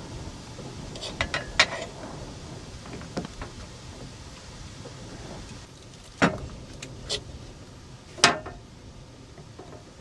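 A handful of sharp knocks and clicks over a steady low rumble, with a quick cluster about a second in and the two loudest knocks about six and eight seconds in.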